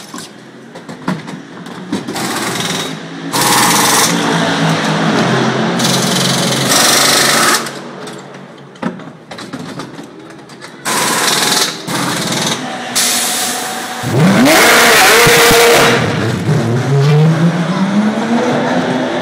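Pneumatic wheel guns rattling in short loud bursts during a pit-stop tyre change on a GT race car. Near the end the car's engine revs with its pitch rising twice as it pulls away.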